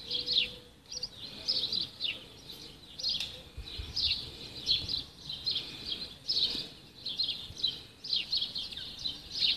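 Small birds chirping: a steady run of short, high, falling chirps.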